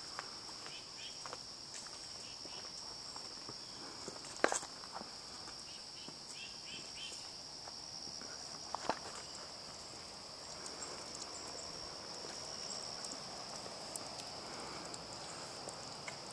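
Steady high-pitched drone of insects, with a few sharp clicks and footsteps, the loudest about four and a half seconds in and again near nine seconds.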